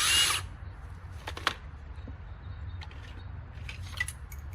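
A power drill-driver runs in one short burst at the start, removing a fastener, then a few light clicks and knocks of parts being handled.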